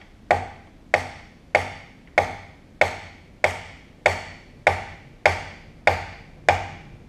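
An orange-headed hammer striking the metal of a Canedy-Otto drill press head in a steady series of blows, about one every 0.6 seconds, each ringing briefly. The blows are meant to drive a stuck post past a notch where it hangs up, which the owner suspects is caused by a burr.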